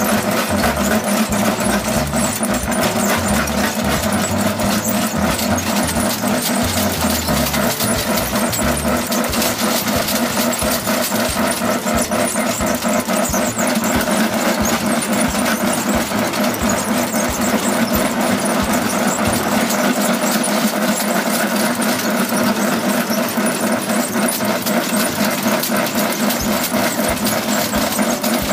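Antique portable rock crusher with a bucket elevator running, a steady mechanical rumble with a rapid rattle of its working parts.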